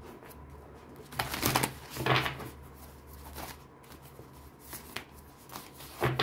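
A deck of tarot cards being shuffled by hand: two loud, harsh riffling rasps about a second and two seconds in, then softer card rustles and taps as the deck is split and put back together.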